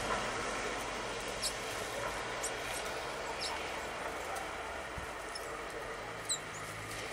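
Great tits giving short, high call notes, about half a dozen scattered through, the loudest near the end, over a steady background rumble.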